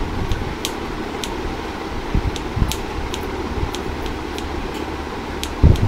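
Kitchen knife slicing shallots on a wooden cutting board: irregular light taps of the blade against the board, with a dull thump near the end, over a steady background hum.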